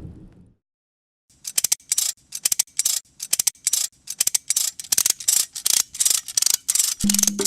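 Rapid mechanical clicking like a clock or gear train, about four sharp clicks a second. It starts after a low rumble fades out and a short silence, and a low steady musical tone joins near the end.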